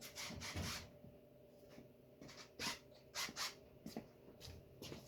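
Faint scattered knocks, clicks and rustles of parts and tools being handled and moved.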